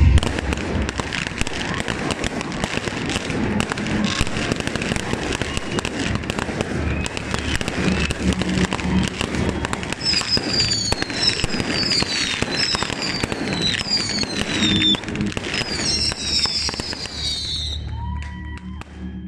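Audience applauding: a dense, steady clatter of many hands clapping, with a run of falling whistles from the crowd in the second half. The applause fades away near the end.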